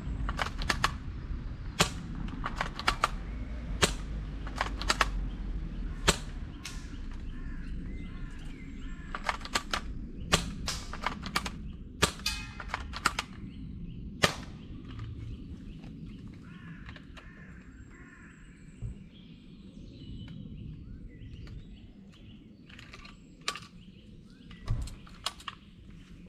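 Guns firing on an outdoor range: a run of sharp single cracks at irregular intervals, coming thick and fast for the first half and more sparsely later on.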